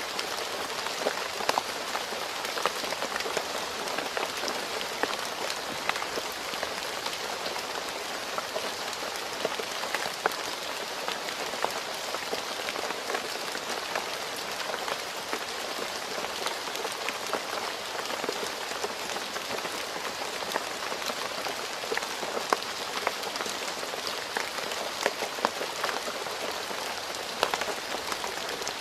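Steady rain falling on a road surface, an even hiss sprinkled with many sharp individual drop impacts.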